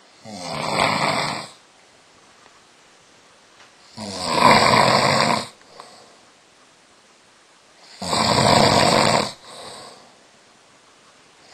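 A man snoring in his sleep after rich food and red wine: three long snores about four seconds apart, the second and third each followed by a fainter breath.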